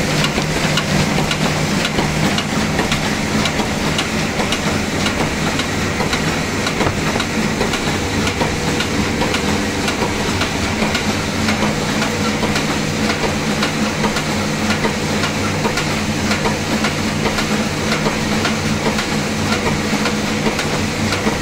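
Automatic envelope-making machine running at speed: a steady, fast mechanical clatter from its rollers, cams and linkages over a steady hum.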